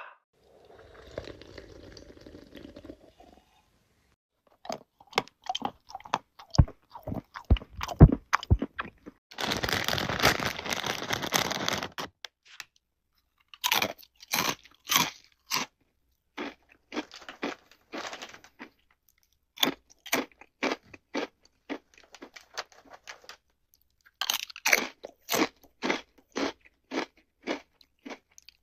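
Crunchy biting and chewing of crisp food, in several separate takes. Sharp crunches come first, then a dense crunching burst of about three seconds, then a long run of rhythmic chewing crunches, about two to three a second.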